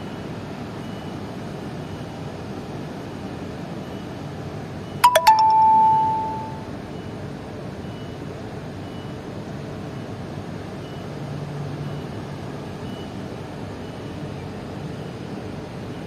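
Steady rushing background noise, broken about five seconds in by a single bell-like ding: a couple of quick clicks, then a clear ringing tone that fades away over about a second and a half.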